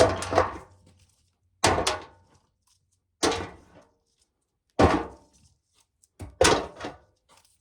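Ears of corn tossed one at a time into a tub, each landing with a sharp knock and a brief clatter, five times about a second and a half apart.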